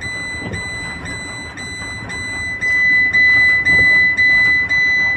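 Electronic alarm beeping at a high pitch, the beeps running almost into each other about twice a second and growing louder about halfway through.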